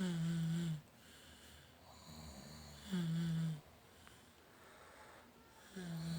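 A father and daughter snoring: three loud snores of steady pitch, each under a second long and about three seconds apart, with fainter, slightly higher snores in the gaps between them.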